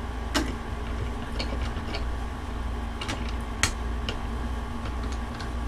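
Light clicks and taps from handling small phone-repair tools and an iPhone, about half a dozen scattered through, the sharpest a little past halfway, over a steady low hum.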